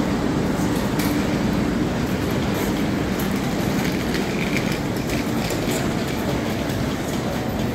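Station platform ambience: a steady low rumble from a standing SJ X2000 high-speed train, with passengers moving about and wheeling suitcases past, and a few light clicks.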